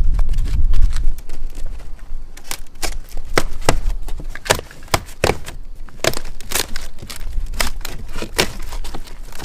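Packaging being handled and unwrapped, crinkling with irregular sharp crackles, a few a second, and a low rumble during the first second.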